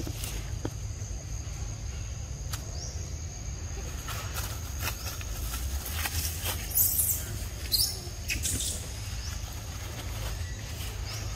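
Leafy undergrowth rustling in short bursts as monkeys scamper through it, loudest about two-thirds of the way through. Under it are a steady high thin tone and a low rumble.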